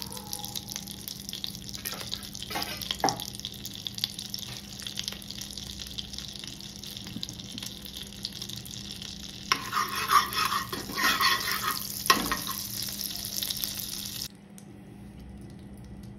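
Oil and butter sizzling and crackling as they heat in a kadai. The sizzle grows louder for about three seconds past the middle, then cuts off about two seconds before the end.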